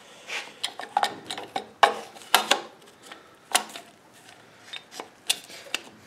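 Plastic pump housing of a GE dishwasher pump being forced and twisted by hand on its motor shaft, giving a string of irregular sharp clicks and knocks; the housing is stuck fast and does not come off.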